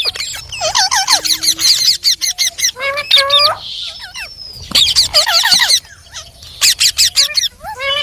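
Parrot calling in bursts of rapid, harsh squawking notes, several runs in a row with short pauses between.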